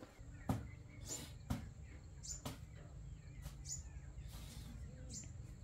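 Irregular sharp knocks or taps, roughly one every second or so, the loudest about half a second in, with short high chirps between them and a steady low hum underneath.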